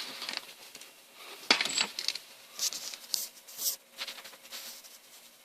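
Light, hard clinks and clatters of small objects being handled, about eight in the first four and a half seconds, dying away near the end.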